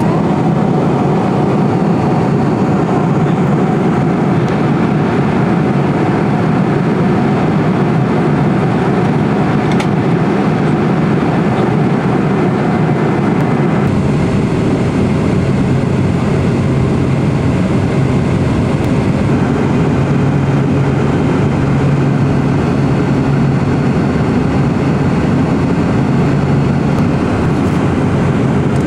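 Steady cabin noise inside a Boeing 747-400 in flight: a continuous rush of airflow and jet engine noise with a low hum. About halfway through the noise changes abruptly, and a steady low drone stands out after that.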